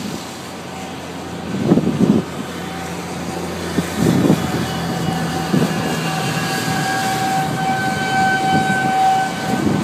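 Wind gusting across the microphone in heavy buffets. Behind it is a steady high-pitched tone that swells from about four seconds in and fades near the end.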